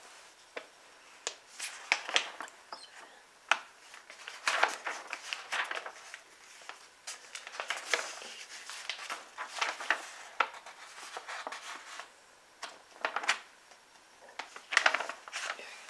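Close-up handling sounds: an irregular run of small clicks, taps and brief rustles, with no steady or pitched sound.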